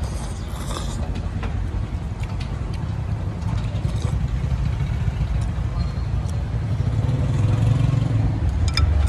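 Road traffic rumbling steadily, growing louder about seven seconds in as vehicles pass. A short noodle slurp comes near the start, and a few light clicks come near the end.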